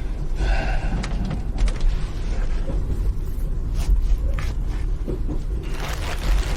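Steady low rumble of a passenger train running, heard from inside the carriage, with scattered clicks and knocks.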